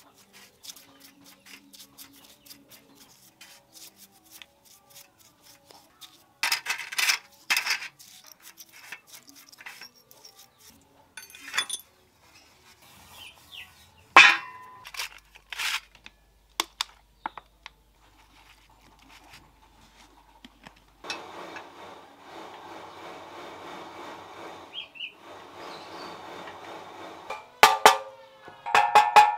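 Metal bicycle headset cups and bearing retainers clinking and being scrubbed with a brush in a steel dish, with a sharp ringing clank of the steel plate about halfway through. Near the end, several quick hammer blows drive a headset cup into the BMX frame's head tube.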